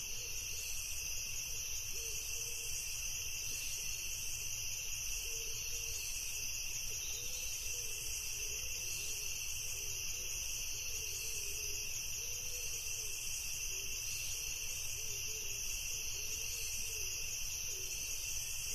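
Steady high-pitched trilling of crickets, unbroken throughout, with a faint wavering low tone beneath.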